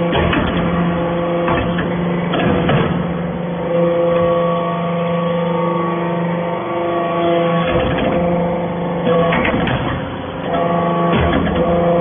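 Hydraulic metal-chip briquetting press running: a steady pump hum that grows stronger for a few seconds in the middle and again near the end, as under pressing load, with several clanks and knocks of the ram and metal parts.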